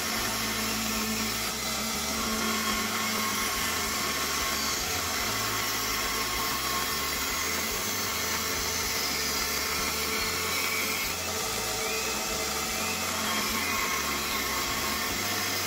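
Bandsaw running steadily while cutting through a thick rosewood plank.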